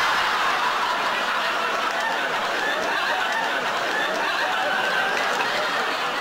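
Studio audience laughing loudly, a dense mass of many voices that eases a little near the end.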